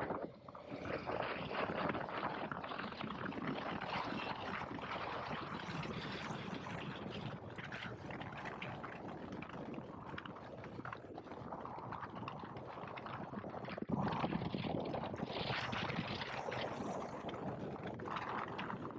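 KTM 1290 Super Adventure S being ridden on the road, heard from on board: wind rushing over the microphone masks the engine and tyre noise. The rush swells suddenly about fourteen seconds in.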